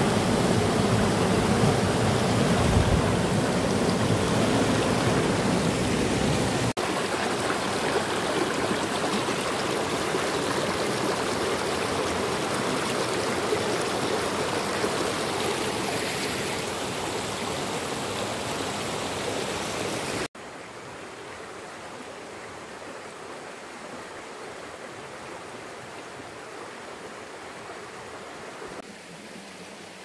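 Shallow rocky stream rushing and splashing over stones, a steady rush of water. It cuts abruptly twice, and after about twenty seconds it is much quieter.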